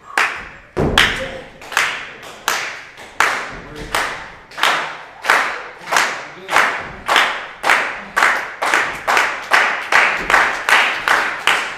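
Crowd clapping in unison in a reverberant hall. The claps come in a steady beat that speeds up from about one and a half to about two and a half a second, building toward a loud burst of noise just after the end.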